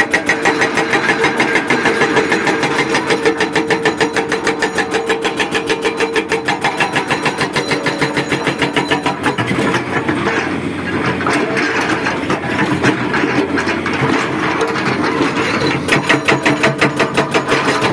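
Excavator-mounted hydraulic breaker hammering rapidly, about ten blows a second, over the machine's diesel engine. The hammering stops for several seconds about ten seconds in, leaving the engine running, then starts again near the end.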